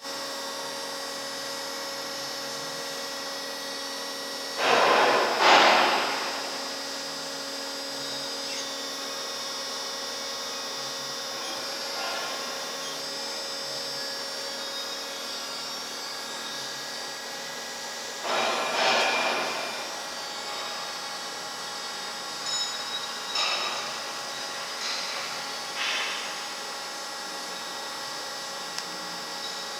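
Bomar STG320 automatic bandsaw running with a steady hum of several tones, broken by two louder noisy bursts of about a second and a half, around 5 and 19 seconds in, and a few shorter ones later.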